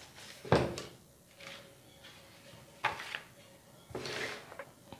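Paper pattern sheets being handled and slid across a table: a light knock about half a second in, then a few short paper rustles.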